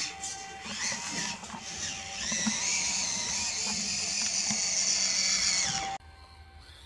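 Electric motor and geared drivetrain of a 1:18 6x6 RC crawler truck whining as it drives. The whine climbs in pitch about two seconds in, holds there, then cuts off abruptly near the end.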